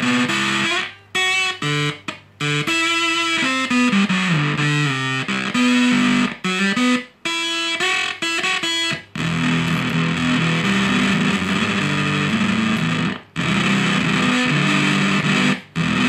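Electric guitar played through an Unshaven Fuzz pedal circuit with its back transistor flipped around 180 degrees, giving a trumpety fuzz tone. It plays single-note phrases first, then from about halfway a thicker, sustained sound, broken once by a short gap.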